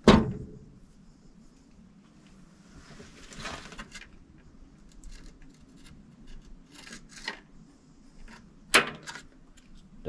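Wire strippers and small wiring parts being handled while the lead wires of a replacement furnace hot-surface igniter are stripped. There is a sharp snap at the start and another near the end, with light clicks and a rustle in between.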